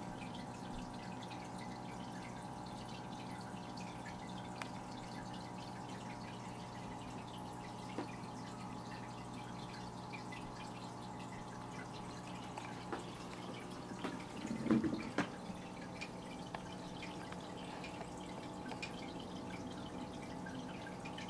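Aquarium water dripping and trickling over a steady low hum from the tank's running equipment, with a few faint clicks and one short, louder knock about two-thirds of the way through.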